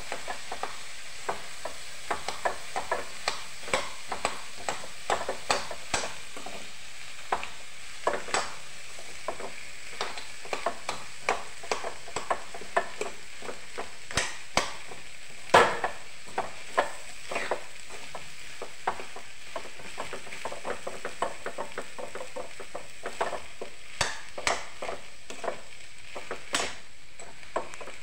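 A slotted metal spatula scraping and clinking against a metal kadhai as boiled potatoes and peas are stirred and broken up, over a steady low sizzle of frying. The scrapes come irregularly, several a second, with one louder knock about halfway through.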